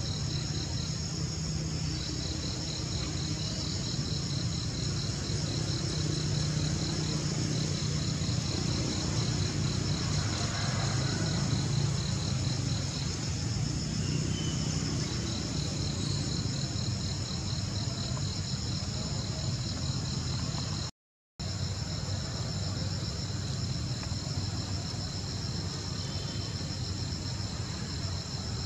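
A steady chorus of insects with a rapid, pulsing trill, over a low steady hum. The whole sound cuts out for an instant about two-thirds of the way through.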